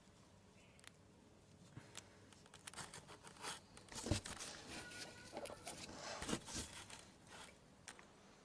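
Hands working plastic car parts: rustling, light clicks and a few sharper knocks as a washer fluid pump is pressed into its rubber grommet in the washer reservoir.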